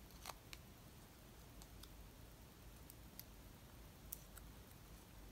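Near silence with a few faint, scattered clicks and ticks from small die-cut paper pieces being handled in the fingers.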